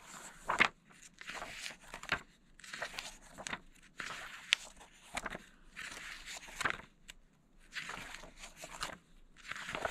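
Pages of a comic book being turned one after another, each a short papery swish ending in a sharp flick, about one a second.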